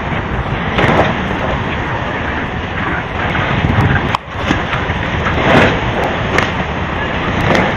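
Steady outdoor background noise from a phone recording, an even hiss-like haze with no clear tones, briefly dropping out about four seconds in.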